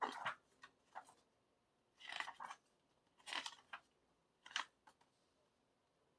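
About five short scraping rustles of paper and plastic album contents being handled, such as photos, photo cards and the case, within the first five seconds.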